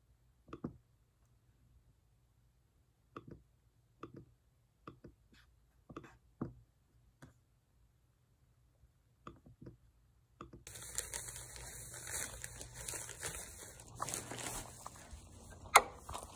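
A few scattered short clicks and taps, then, about ten seconds in, a sudden continuous rustle of handling noise as the camera is picked up and rubbed against clothing, with one sharp knock near the end.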